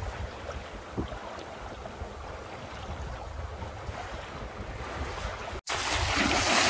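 Wind buffeting the microphone over a steady wash of water along the hull of a small sailing yacht moving under sail. After a brief cut near the end, the rushing water and wind are louder and hissier.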